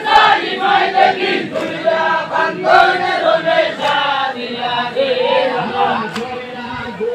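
A large group of men chanting a jari song together, many voices overlapping, with crowd noise around them.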